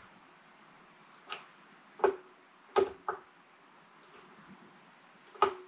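Sharp metallic clicks, five in all, each followed by a brief ringing tone, from screwdriver work on a Hatsan Flash PCP air rifle.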